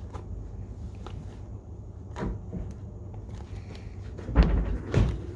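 Handling noise: a small clear plastic stencil case clicking in the hands, then two louder knocks about four and five seconds in as a hand goes into the cardboard shipping box.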